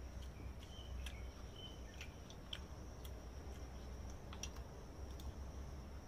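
Steady high-pitched insect trilling from the surroundings, with scattered light clicks of metal spoons against paper lunch boxes and a few short high chirps, over a low rumble.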